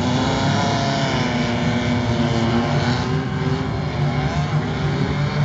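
Engines of off-road racing vehicles running hard on a muddy dirt track, droning steadily with their pitch rising and falling as they rev.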